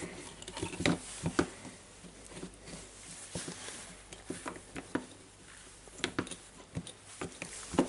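Scattered light clicks and taps as a small drill motor and its wires are pressed and shifted into a Milwaukee M12 drill's plastic housing half during a test fit.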